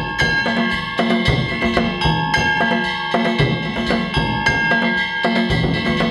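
Danjiri hayashi festival music: taiko drums beaten in a steady, driving rhythm with metal hand gongs ringing over them.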